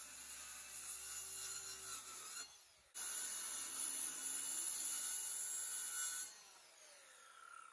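Corded circular saw cutting through the ends of wooden deck boards. It drops out abruptly just before three seconds in and resumes louder. Near the end the motor winds down with a falling whine.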